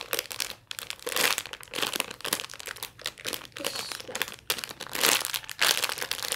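A rainbow unicorn foam squishy toy being squeezed and handled close to the microphone, making a run of irregular rustles.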